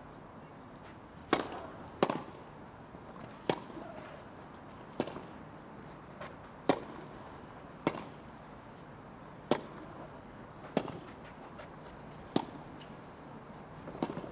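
Tennis rally: rackets striking the ball back and forth, about ten sharp pops at a steady pace of roughly one every one and a half seconds, some of them slices, over a faint steady crowd hum.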